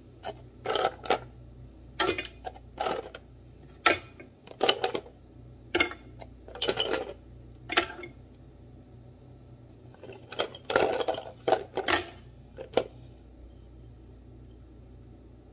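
Ice knocking and clattering against the stainless-steel bowl and lid of an electric ice shaver as it is handled: a string of separate sharp clinks with a short pause midway. The shaver's motor is not running.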